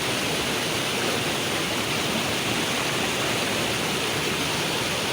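Steady, unbroken rush of water at a rocky waterfall.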